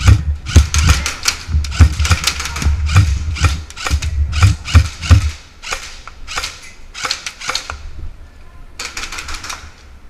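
Airsoft guns firing a rapid, irregular string of sharp shots, with a short last cluster about nine seconds in. Low thumps run under the first five seconds.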